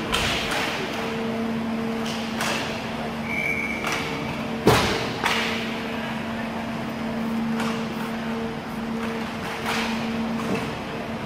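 Inline roller hockey play: sharp clacks and knocks of sticks striking the puck and the puck hitting the boards, the loudest about halfway through, over a steady hum in the rink hall.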